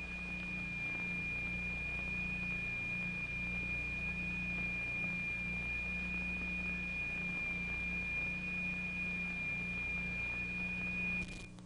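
A steady, high-pitched pure tone, the sine tone driving the vibrating plate, held at one pitch over a low mains hum and old-film hiss. Near the end the tone breaks off briefly with a few crackles, then returns.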